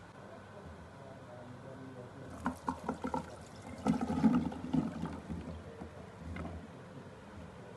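Diced raw potatoes and water tipped from a bowl into a plastic colander. A few light knocks come about two seconds in, then the main pour of splashing and clattering pieces about four seconds in, dying away to a dribble.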